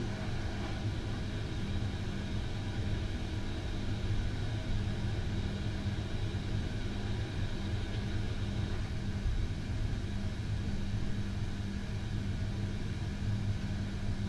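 Steady low rumble and hum of a ferry's engines and machinery, heard from inside the ship.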